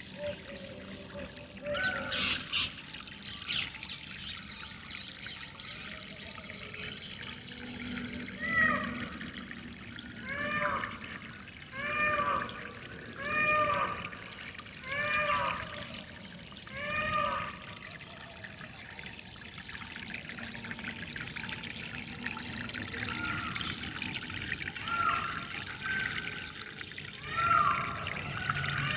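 Water trickling and pouring steadily, with a bird giving a series of about seven loud arched calls, one every second and a half or so, through the middle. Shorter calls of the same arched shape come again near the end.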